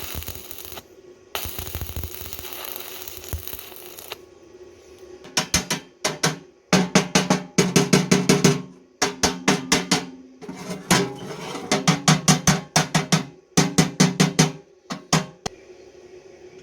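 Runs of rapid hammer blows on metal, about five or six a second in groups separated by short pauses, with a low metallic ring under the blows. Before them come two stretches of hissing noise, the second about three seconds long.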